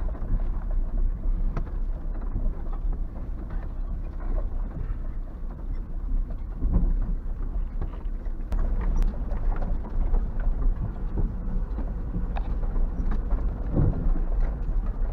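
Car driving: a steady low rumble with scattered knocks and rattles.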